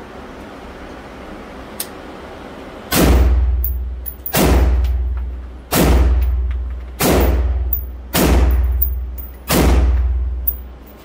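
Six rifle shots from an AR-15-style rifle, fired at an even pace about a second and a half apart, starting about three seconds in. Each shot echoes and rings out in the indoor range.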